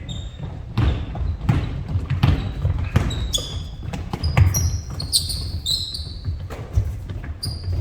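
Basketballs bouncing on a gym floor in irregular thumps, with short high-pitched sneaker squeaks from players' shoes, thickest in the second half.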